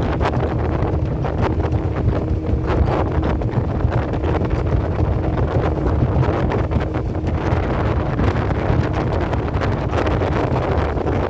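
Wind buffeting the microphone: a loud, steady low rumble with small gusty crackles, over a faint steady hum.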